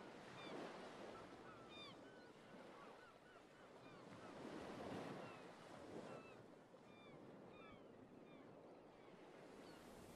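Faint sea surf washing in slow swells, with many short bird calls scattered over it.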